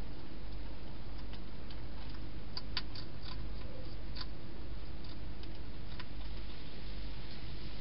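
A hedgehog eating at a bowl inside a plastic feeding box: scattered sharp clicks of chewing and bowl contact, with a quick cluster of them near the middle, over a steady low hum.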